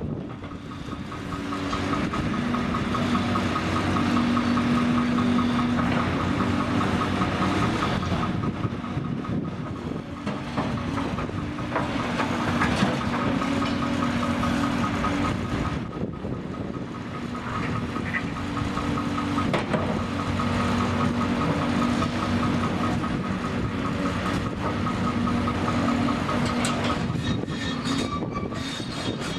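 Hyundai crawler excavator at work: its diesel engine runs steadily, swelling and easing with the hydraulic load, under a continuous metallic clatter.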